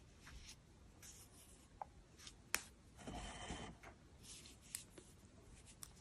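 Faint, soft rubbing and rustling of yarn as a crochet hook works stitches, with a few small clicks, the sharpest about two and a half seconds in, followed by a slightly louder rustle.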